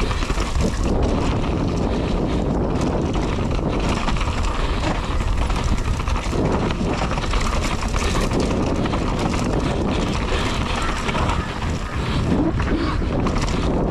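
Mountain bike descending a downhill dirt trail at speed: steady rushing wind on the microphone over the rattle of the bike and tyres on the ground, with a few sharp knocks in the first few seconds.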